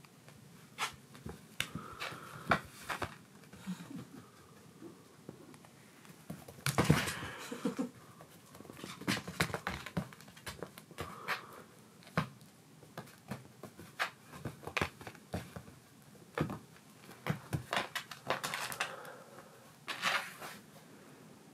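Kittens pouncing and scrabbling on tatami mats while playing with a wand toy: irregular light taps, pats and thumps, with a louder rustling scuffle about seven seconds in and another near the end.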